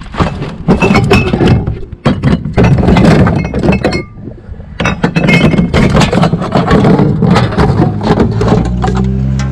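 Empty aluminium drink cans and glass bottles clattering and clinking as a hand rummages through them and pulls them out of a plastic recycling bin, with many quick knocks in irregular runs.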